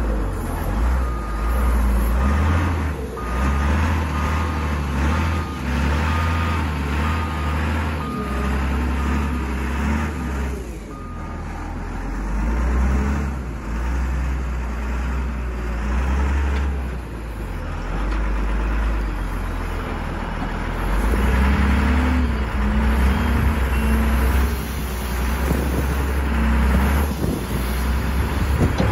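Caterpillar IT28G wheel loader's diesel engine running under load and revving up and down as it works a dirt pile. Its reversing alarm beeps about once a second for the first ten seconds while it backs away with a full bucket.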